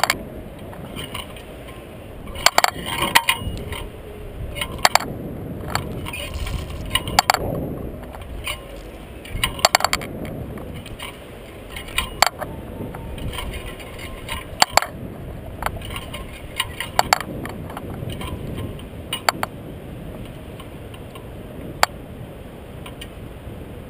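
Scattered metallic clicks, clinks and a few sharp knocks from the Skyscraper thrill ride's gondola and seat hardware as the arm slowly lifts, over a low rumble and wind buffeting the ride-mounted camera.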